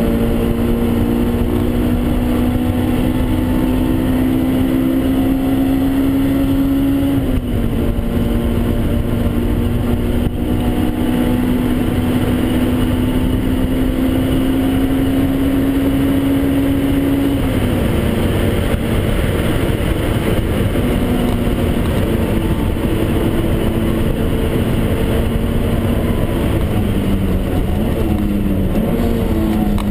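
Honda S2000 AP1's 2.0-litre four-cylinder VTEC engine at high revs, heard from inside the cabin over wind and road noise. Its pitch climbs slowly in the upper gears, drops sharply at upshifts about seven seconds in and again past seventeen seconds, and falls and shifts several times near the end as the car slows.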